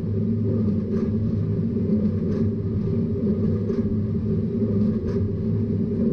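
A tractor and Massey Ferguson 2200 series large square baler running in the field: a steady engine drone with a faint, regular tick about every second and a half.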